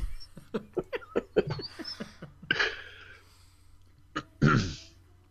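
Laughter: a quick run of short breathy bursts for about two seconds, then a few louder gasping bursts of laughter toward the end.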